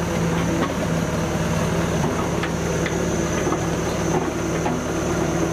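A heavy engine running steadily, with a few faint clicks over it.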